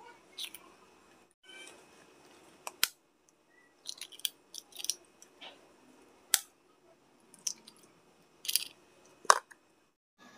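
Three hen's eggs cracked one after another with a knife blade: a series of sharp taps and cracks as the blade strikes and splits the shells.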